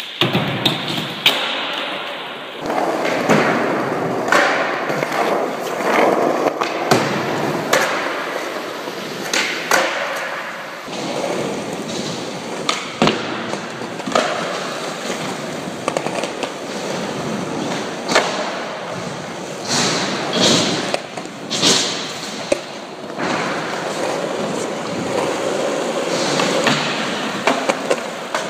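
Skateboard wheels rolling over a hard floor, broken many times by sharp clacks of the board popping and landing tricks.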